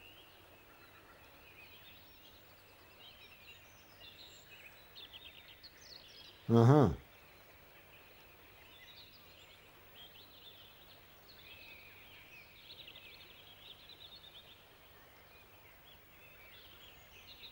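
Faint birdsong: small birds chirping and trilling in quick, high phrases over quiet outdoor background. About six and a half seconds in comes one brief, loud, low-pitched vocal sound lasting about half a second.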